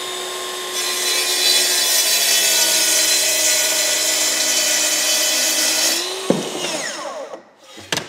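Festool HKC 55 cordless track saw crosscutting a white oak stair riser along its rail. The motor is already running free, the blade bites into the wood about a second in and cuts steadily for about five seconds, then the motor winds down with falling pitch. There is a sharp knock as the cut ends and a click near the end.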